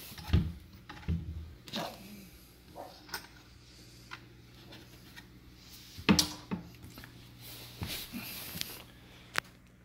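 Scattered knocks, clicks and short rustles of handling, the loudest about half a second in and again about six seconds in, over a steady low hum.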